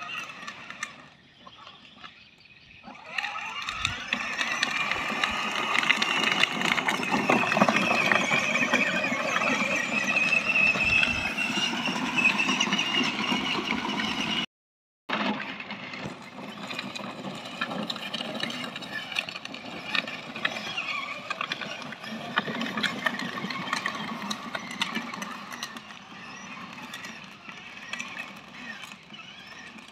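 Battery-powered children's ride-on 4x4 toy car driving: a whine from its electric drive motors that wavers and rises and falls in pitch, with tyre noise. It grows louder about three seconds in and drops out for a moment about halfway through.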